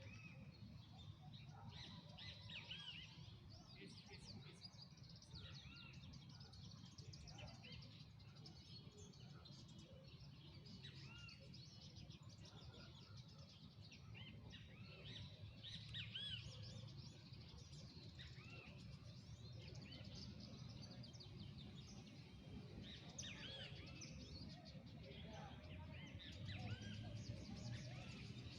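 Birds chirping and calling in many short, quick notes, a thrush among them, over a faint steady low rumble.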